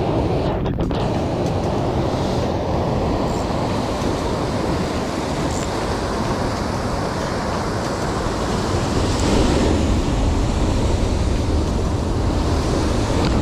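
Heavy ocean surf breaking on and washing over shoreline rocks: a loud, steady rushing rumble that swells a little about nine seconds in.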